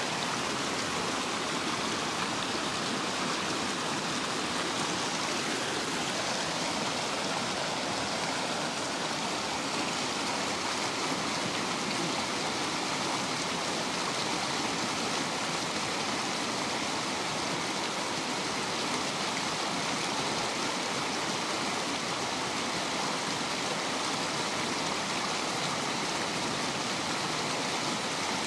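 River rapids rushing steadily, an even, unbroken sound of white water.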